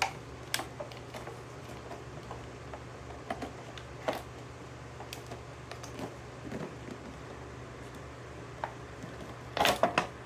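A toy monster truck's packaging being handled and opened: scattered small clicks and crinkles, with a cluster of louder clicks near the end, over a steady low hum.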